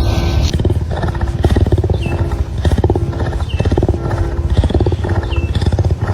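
A big cat making a low, pulsing rumble in repeated short phrases, with a faint high chirp now and then in the background.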